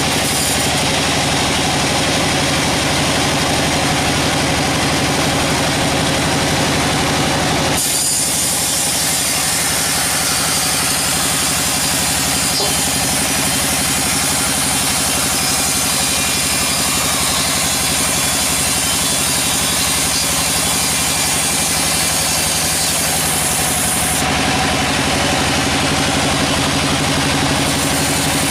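Engine-driven sawmill running steadily with a low, even hum. About eight seconds in, a bright hissing noise sets in abruptly over it and stops again near the end.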